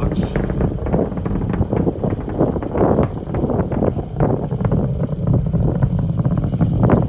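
Distant Falcon 9 rocket's first-stage engines in ascent: a steady deep rumble with ragged crackling.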